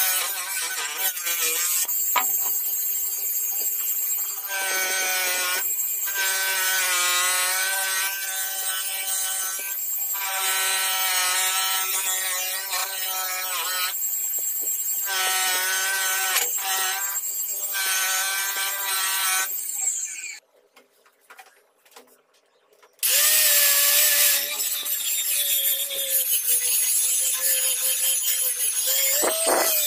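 Bench grinder's buffing wheel spinning as polishing compound and then the cleaver's steel are pressed against it, the motor whining steadily with short breaks. After a brief drop to near silence about two-thirds of the way in, an angle grinder with a polishing disc runs on the steel blade with a steady, slightly higher whine.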